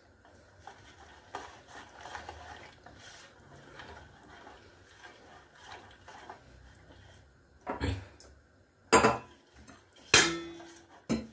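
Fingers mixing a wet spice marinade of oil and water in a plate, with faint soft scraping and squishing. Near the end, three or four sharp knocks of dishes on the counter, one of them ringing briefly.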